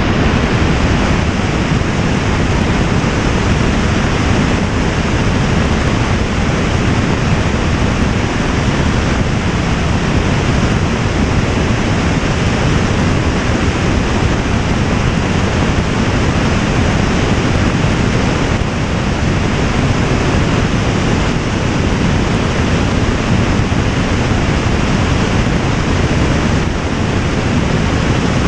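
Loud, steady rushing noise of wind on the microphone of a camera in flight, with no changes.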